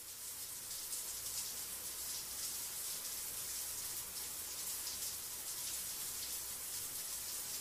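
Shower water running: a steady hiss that swells up over the first second, then holds even.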